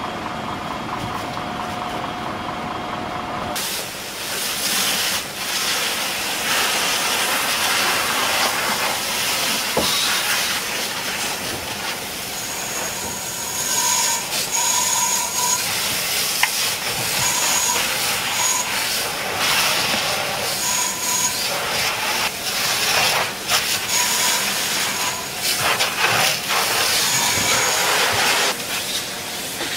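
A low steady hum, then from about three and a half seconds in a loud, steady hiss of fire-hose water spray and steam on a burning house. In the second half, short high electronic beeps sound every few seconds, mostly in pairs.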